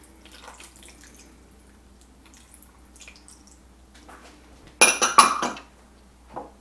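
Faint trickle of soy sauce poured from a small prep bowl into a crockpot, then several quick ringing clinks of small bowls knocking together about five seconds in, with one softer clink near the end.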